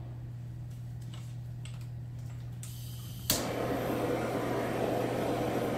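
Handheld kitchen blowtorch clicking alight about three seconds in, then its flame hissing steadily as it browns the cheese topping on corn cheese.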